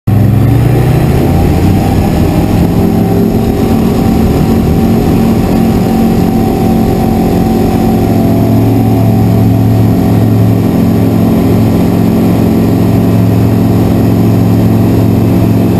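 Kitfox light aircraft's engine and propeller running loud and steady during the takeoff run and climb-out, heard from inside the cockpit. The pitch rises a little over the first few seconds as power comes up, then holds.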